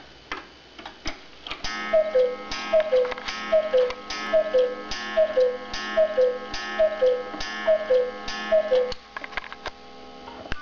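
Rombach und Haas Black Forest cuckoo clock calling the hour with its bellows and pipes: nine falling two-note "cu-ckoo" calls, evenly spaced, each with a soft click of the mechanism. The movement ticks before and after the calls.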